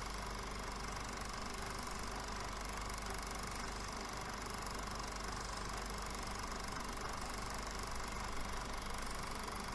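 Film projector running steadily, a continuous mechanical whirr that does not change.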